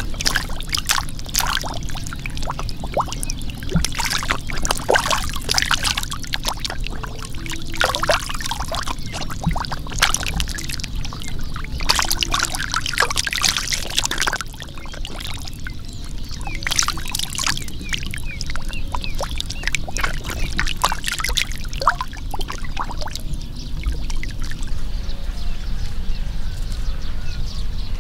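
Water and mud splashing and sloshing in irregular bursts, over a steady low rumble.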